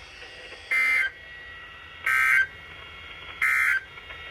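NOAA Weather Radio end-of-message EAS (SAME) data tones: three short bursts of buzzing digital tone about 1.4 seconds apart, marking the end of the tornado warning broadcast.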